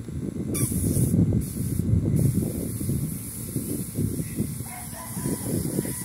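Spray gun hissing in short on-off bursts as sanding sealer is sprayed onto plywood furniture, over a steady low rumble. A rooster crows about four seconds in.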